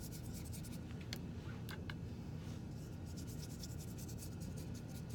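Paintbrush strokes on paper: the bristles scratch and rub across the sheet in short, irregular strokes over a steady low hum.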